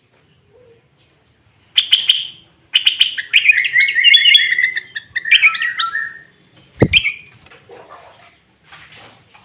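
Sooty-headed bulbul singing: a short call about two seconds in, then a loud, quick, bubbling phrase of rising and falling notes lasting about three seconds. A sharp knock sounds near the end, with one more short call right after it.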